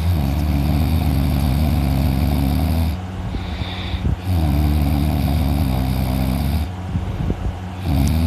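A person snoring heavily in sleep: two long, buzzing snores of about three and two and a half seconds, with quieter breaths between them, and a third snore starting near the end.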